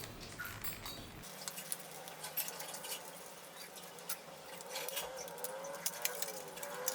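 Small clicks, rustles and crinkles of a sealed SSD retail box being opened and its packaging handled.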